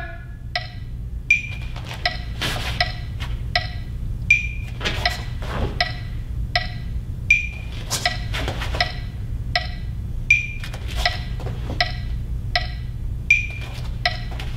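Wood-block-style percussion beat keeping time: short, evenly spaced clicks about every three quarters of a second, with a stronger ringing click every three seconds, and a few sharper cracks among them. A steady low hum runs underneath.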